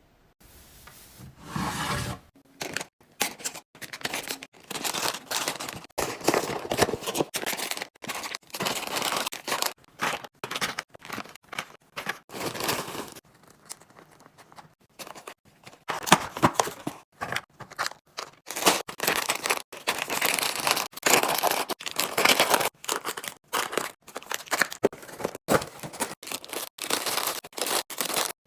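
Plastic and paper packaging being cut, torn open and crinkled in a run of short restocking clips, each starting and stopping abruptly.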